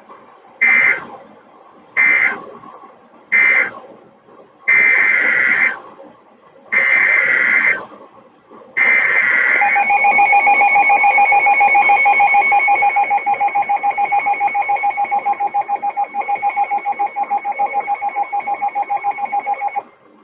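NOAA Weather Radio Emergency Alert System signal from a weather radio's speaker. First come six digital SAME data bursts, three short and then three about a second long. A steady alert tone follows for about ten seconds and cuts off, marking the start of a new warning broadcast.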